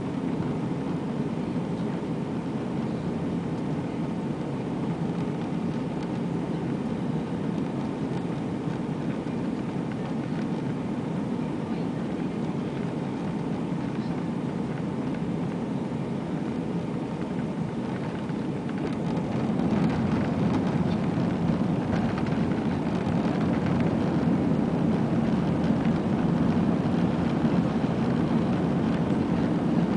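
Airbus A320 cabin noise on approach: a steady rush of engine and airflow noise heard inside the cabin, growing louder about two-thirds of the way through.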